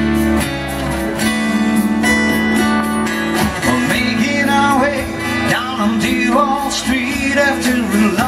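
Acoustic guitar strummed steadily as a song's intro, with a man's singing voice coming in about four seconds in.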